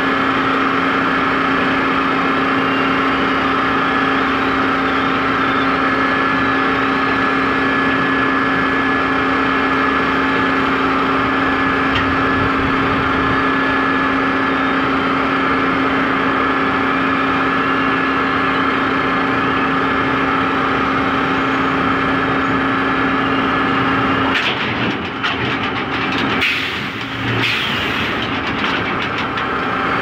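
Heavy sawmill log-yard machinery running steadily, a loud hum with a constant whine. About 24 seconds in the whine drops out and the sound turns uneven for the last few seconds.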